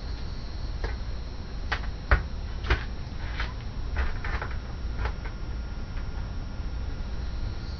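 Light clicks and taps of plastic cable connectors and the sheet-metal chassis of an opened LCD monitor being handled while a connector is fitted and the panel lifted, a scattered string of them with the sharpest about two seconds in.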